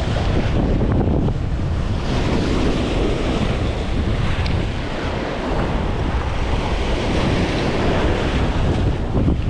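Wind buffeting the microphone over waves surging and washing against the jetty rocks.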